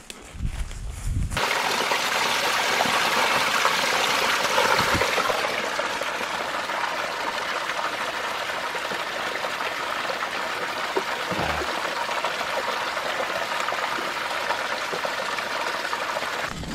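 A few footfalls through bush, then from about a second in the steady, even rush of a stream or river running over stones.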